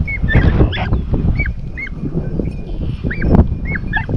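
Rabbit hounds giving voice on the chase: a run of short, repeated yipping barks that rise and fall in pitch, about two a second, as the pack trails a rabbit. Wind and rustling sit underneath.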